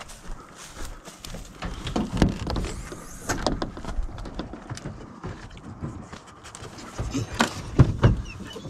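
Handling noise at a pickup's camper shell: scattered clicks and knocks as the rear glass hatch is unlatched and lifted, with footsteps and rustling in dry grass. A louder cluster of knocks comes near the end.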